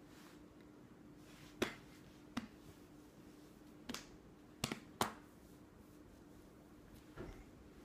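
About six sharp, separate hand snaps, spaced irregularly a second or so apart, over a faint steady hum.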